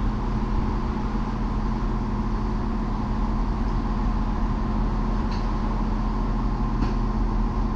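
Diesel multiple unit standing at the platform with its engine idling, a steady hum.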